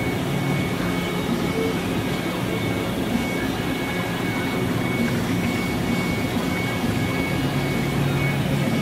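Sodick AQ35L CNC ram EDM running while it machines: a steady mechanical hum with a thin, constant high whine over it.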